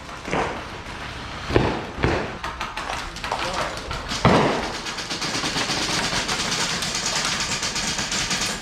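A few dull thumps, then, about halfway through, a fast steady rattle of full-auto airsoft gunfire that keeps going.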